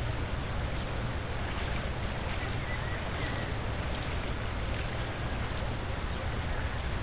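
Steady rush of a shallow river flowing over stones, with a low wind rumble on the microphone. A few faint high chirps come about two to three seconds in.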